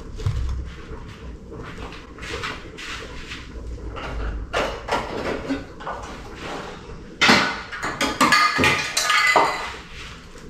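Dishes and kitchenware handled on a counter: light clicks and rustles, then about seven seconds in a sudden louder clatter with ringing tones that lasts about two seconds.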